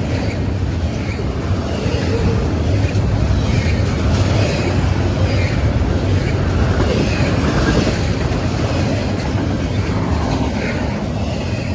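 CSX freight train rolling past at track side, a loud steady rumble.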